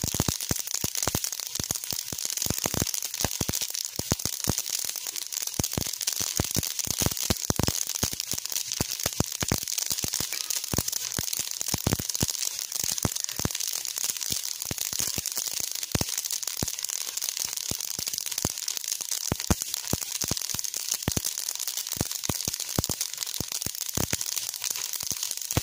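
Flaxseeds roasting in a steel pot, crackling and popping with many irregular sharp clicks, several a second, over a steady hiss, as a metal spatula stirs them.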